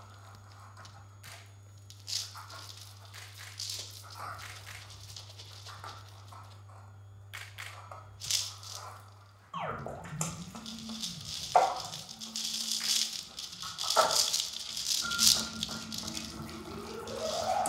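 Gourd rattle strung with cowrie shells being shaken, the shells clattering against the gourd. The shakes are sparse and quiet at first and turn louder and denser from about halfway through, with a few falling swoops and one rising swoop mixed in.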